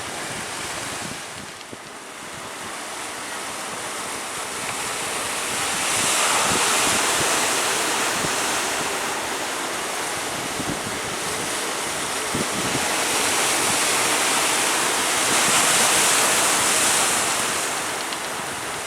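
Sea surf rushing and breaking, mixed with strong wind on the microphone; the roar swells about six seconds in and again near the end.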